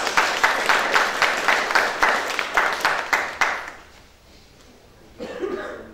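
Applause from a group of people, dying away after about three and a half seconds; a voice is heard briefly near the end.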